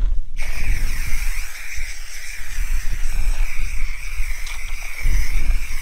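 Aerosol can of marking paint spraying in one long, continuous hiss, starting a moment in. Wind rumbles on the microphone underneath.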